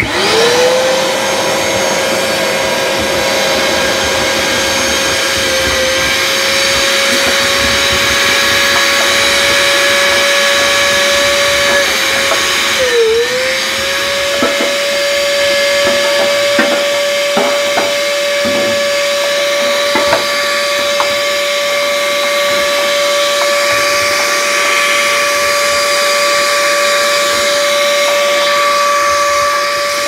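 A small 2.5-gallon wet/dry shop vacuum spins up and runs with a steady whine as it sucks dryer lint up its hose. Its pitch dips briefly about 13 seconds in, then recovers. Short clicks and rattles of debris are heard going up the hose soon after.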